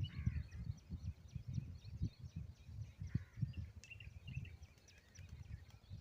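Many short, high bird chirps repeating throughout, with a couple of brief lower calls, over a heavy, uneven low rumble such as wind buffeting the microphone.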